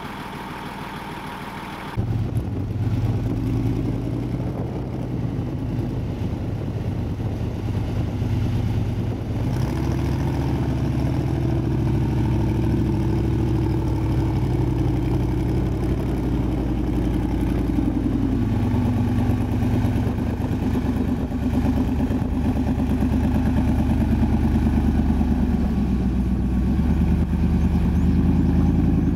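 Off-road buggy engine running under load as it crawls up a steep sand bank, its pitch stepping up and down with the throttle. It starts suddenly about two seconds in and grows gradually louder.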